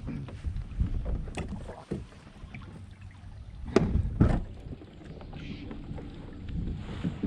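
Knocks and bumps of gear being handled in a fishing kayak, with low water noise along the hull; two louder thumps come a little before and after four seconds in.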